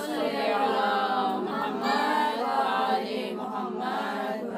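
A group of voices chanting together in unison, with long held notes gliding up and down in pitch.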